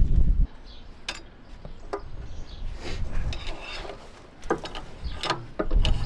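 A low rumble cuts off about half a second in, then scattered, irregular clicks and knocks of metal and wood as a bottle jack and wooden blocking are handled under a bulldozer's frame.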